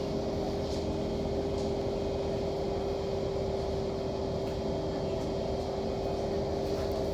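Kawasaki C151 MRT train running steadily through an underground tunnel, heard from inside the carriage: a continuous rumble of wheels on rail with a constant hum above it.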